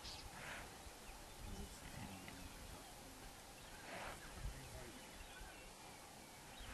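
Faint open-air ambience: a steady low noise with a few faint high chirps, and two brief soft breathy sounds, about half a second in and about four seconds in.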